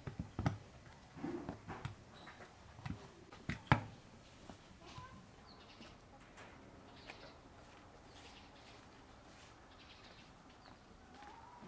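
Hand staple gun firing a few sharp shots into fabric padding, with knocks of handling between them; the loudest shot comes near four seconds in. After that, faint bird chirps over quiet outdoor background.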